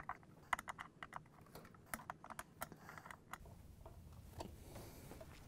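Faint, irregular clicks and ticks of a hand Phillips screwdriver tightening down the screws of a washer's metal inner-tub hub. The clicks come quickly over the first three seconds or so, with one more near the end.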